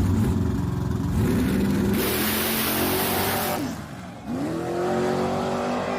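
Car engine revving and accelerating, its pitch climbing and shifting, with a loud rush of hiss in the middle. There is a brief drop about four seconds in before the revs climb again.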